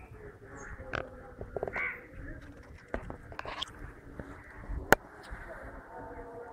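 A few short, harsh animal calls, with scattered clicks and knocks and one sharp click a little before five seconds in.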